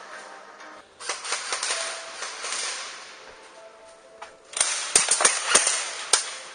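Airsoft guns firing: a crackle of shots about a second in, then a louder string of four or five sharp cracks about five seconds in.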